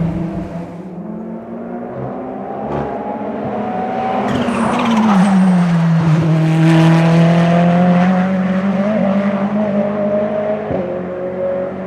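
Ferrari 488 GT3's twin-turbo V8 race engine going past on track. The engine note swells, dips in pitch and climbs again, is loudest in the middle, then eases off.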